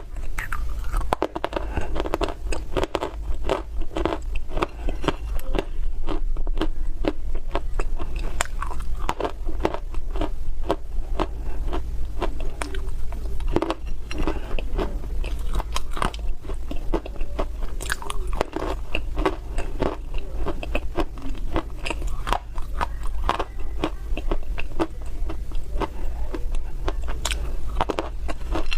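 Close-miked biting and chewing of crunchy baked clay: a dense, continuous run of sharp crunches and cracks over a steady low hum.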